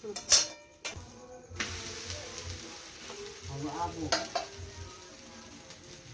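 A metal pan lid clanks and knocks as it is lifted off a frying pan over a wood fire. About a second and a half in, batter goes into the hot pan and a steady sizzle starts suddenly, with one more clank of metal later on.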